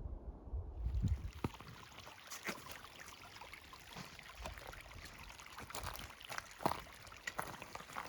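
Mountain stream running steadily, with scattered sharp clicks over it. A low rumble comes before the water starts about a second in.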